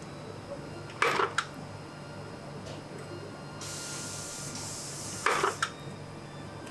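Small bench press punching a metal fountain-pen nib blank: two sharp metallic strikes about four seconds apart, each followed by a quick second click. A hiss runs for a second or so before the second strike, over a steady low machine hum.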